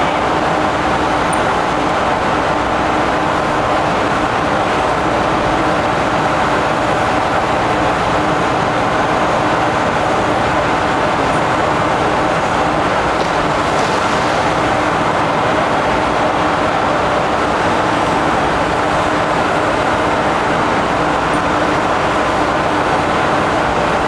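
Loud, steady drone of shipboard machinery with a few constant hums in it.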